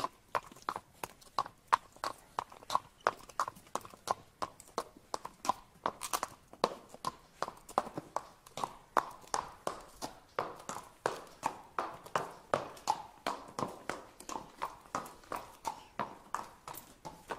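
Horse hooves clip-clopping on hard ground in a steady, even rhythm of sharp strikes, about two to three a second.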